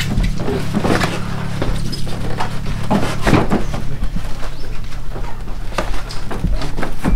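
Irregular knocks, scrapes and plastic rustling as a heavy shrink-wrapped machine on a wheeled base is shifted and lowered off a pickup truck's bed, over a steady low hum.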